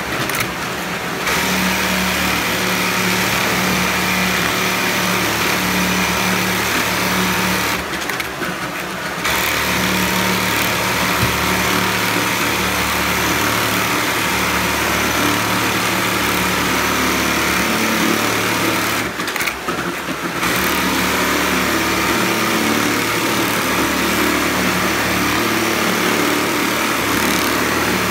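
Computerized industrial pattern sewing machine stitching a shoe upper clamped in a template, running steadily with a steady hum underneath. Its noise drops briefly twice, about 8 and 19 seconds in.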